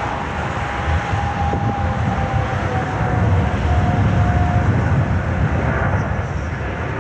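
Aircraft engine noise: a steady low rumble with a faint whine that slowly falls in pitch over the first few seconds.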